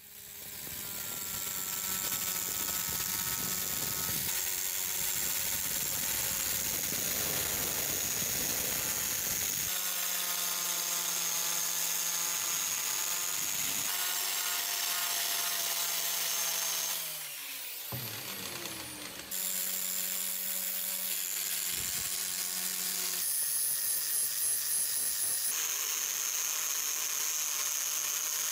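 Angle grinder with a foam polishing pad running, buffing the steel head of a hammer to a polish. It spins up at the start and gives a steady motor whine. About two-thirds of the way through it dips briefly in pitch and level, then picks back up.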